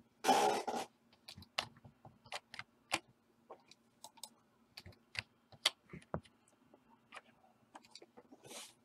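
Irregular sharp clicks of a computer mouse and keyboard being worked, about fifteen to twenty in all, over a faint steady hum. A short rush of noise comes just after the start, the loudest sound here, and a softer hiss comes near the end.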